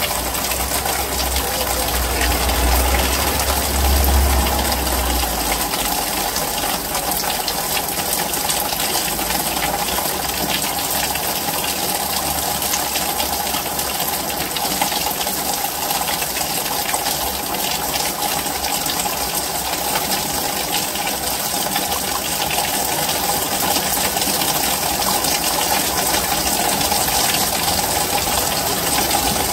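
Heavy rain pouring down in a steady hiss. A low rumble runs under it for the first five seconds or so.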